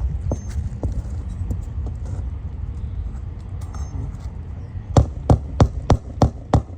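Six quick hammer blows, about three a second near the end, driving an old roofing nail flush under the shingles so a new shingle can slide past it.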